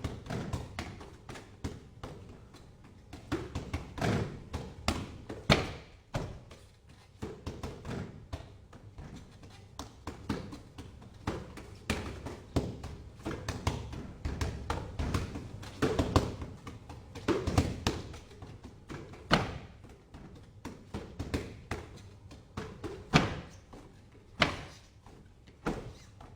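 Wing Chun punches and hand strikes landing: a steady run of irregular thuds and taps, often several in quick succession, then brief pauses.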